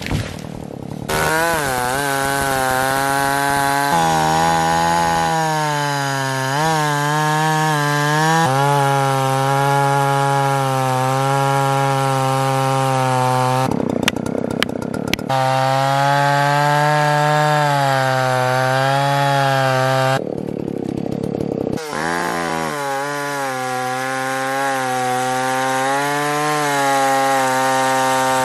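Old Husqvarna 77 two-stroke chainsaw running under load as it cuts through wood. Its engine note sags and recovers as the chain bites, and twice it gives way for a second or two to a harsher noise without a steady pitch, about halfway through and again about two-thirds through.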